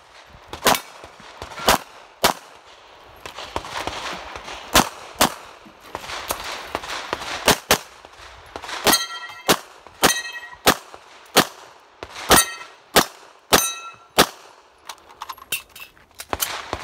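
Pistol shots fired in quick strings, about twenty in all, roughly half a second to a second apart with short pauses between strings. From about nine seconds in, many shots are followed by the ringing of struck steel targets.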